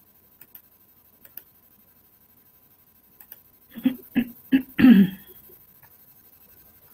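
A few faint clicks, then about four seconds in a cluster of four short, broken bursts of a person's voice over video-call audio.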